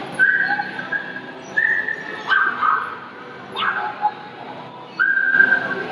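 A dog whining: about five high-pitched whines, each under a second long, one of them sweeping sharply upward, over a steady background hubbub.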